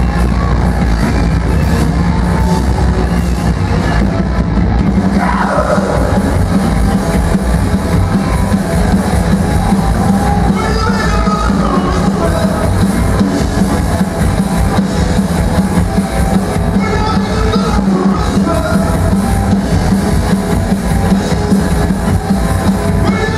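Live rock band playing loud and steady: electric guitar over upright double bass and a drum kit.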